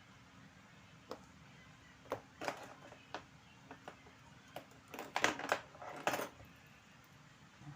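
Small metal watchmaker's tools clicking and tapping against the case and movement parts of a Seiko 7002 diver's watch during servicing. Scattered light clicks, with a quick cluster a little past the middle.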